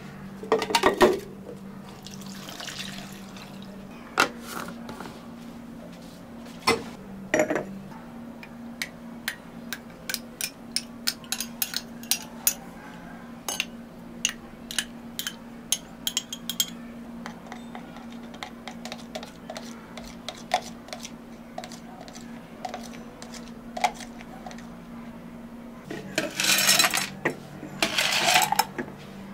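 Drink preparation behind a cafe counter: a run of small clicks and clinks of cups, lids and utensils, with liquid being poured. A few seconds of louder rushing noise come near the end. A steady low hum of cafe equipment runs underneath.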